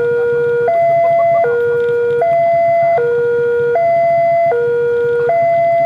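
Electronic railway level-crossing warning alarm sounding its two-tone hi-lo pattern, a higher and a lower note swapping about every three-quarters of a second, warning that a train is approaching.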